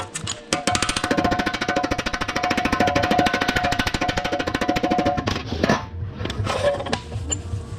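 A power tool running with a fast, even rattling beat for about five seconds, then stopping; a few separate knocks and clatters follow.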